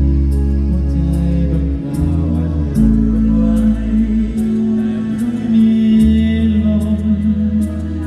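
Live band playing a slow pop ballad, with deep bass notes, steady cymbal ticks and a singer holding long notes.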